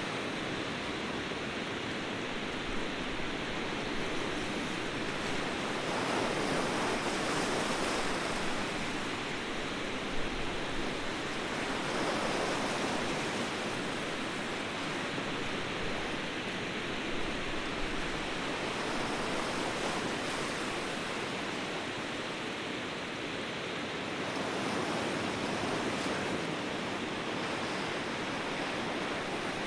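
Ocean surf: a continuous wash of breaking waves that swells and eases every several seconds.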